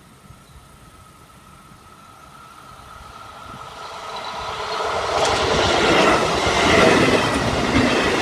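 Electric passenger train approaching and passing close by. It builds from faint to loud about halfway through, with the wheels clattering over rail joints as it goes past.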